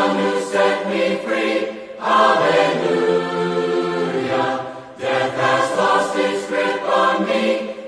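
A group of children's voices singing a worship song together, in held phrases with short breaks between them.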